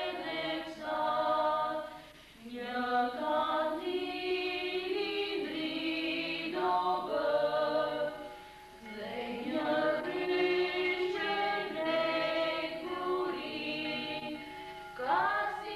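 A choir singing a slow melody in long held notes, in phrases with short breaks between them.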